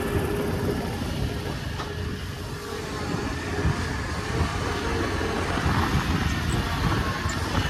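Steady engine running from a riding lawnmower pushed out of mud by a New Holland compact track loader, whose diesel runs close behind it.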